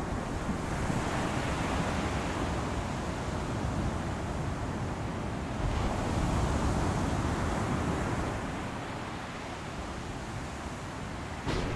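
Stormy sea: wind and waves surging in a steady rush that swells and eases, with a sudden louder surge just before the end.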